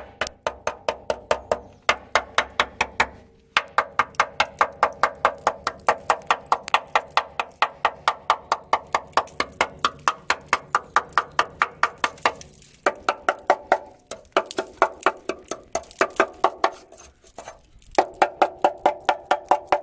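Hammer tapping rapidly along the steel chassis rail of a Land Rover Discovery 2, about five sharp ringing knocks a second in runs with short breaks. It is testing the rail for rust: sound metal holds up to the blows, while rotten metal gives way under the hammer.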